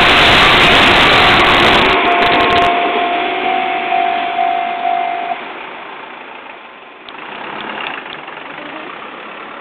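A train passing over a level crossing, with a steady whine, loud until its noise drops off sharply a little under three seconds in. The whine carries on and stops about five seconds in, and the sound falls away to a low steady background.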